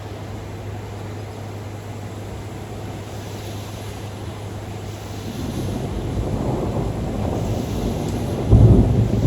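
Thunder during a thunderstorm: a steady hiss at first, then a low rumble building from about five seconds in and breaking into a sudden, louder peal near the end.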